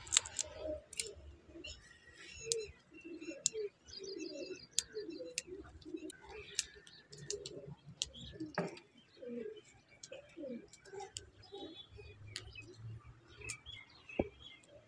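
Birds calling throughout: many short, low repeated calls and higher chirps, with scattered sharp clicks and one louder click about halfway through.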